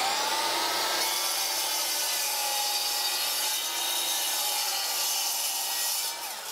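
DeWalt miter saw just switched on, its motor whine rising to full speed in the first second, then cutting steadily through a strip of Corian solid-surface sheet. The sound eases off just before the end.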